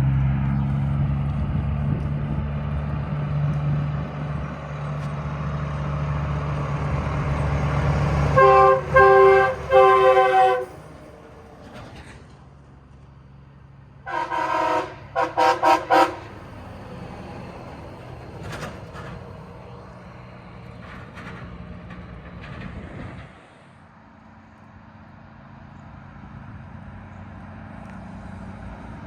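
Diesel locomotive's low engine drone growing louder, then its multi-chime air horn sounding a chord in several short blasts that cut off suddenly about ten seconds in. A second train horn sounds a chord in a few short blasts about fourteen to sixteen seconds in.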